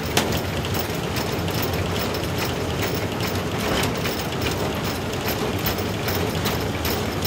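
Cab noise of a ČSD class 423.0 steam locomotive under way: a steady running rumble with irregular small rattles and knocks of the cab fittings and running gear.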